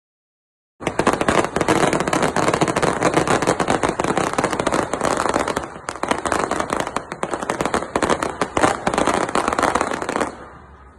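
Fireworks crackling in a dense, rapid stream of pops, starting suddenly about a second in and stopping abruptly near the end.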